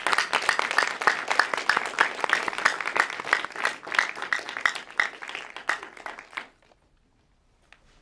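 Audience applauding, the clapping dying away about six and a half seconds in, leaving near silence.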